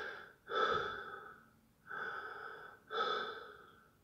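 A man breathing heavily with loud, rasping gasps, about one a second, acted as the laboured breathing of a dying man.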